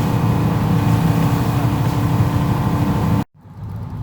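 Fishing boat's engine running under way: a steady, loud drone with a rushing noise over it. The sound cuts off abruptly about three seconds in, and a quieter engine hum follows.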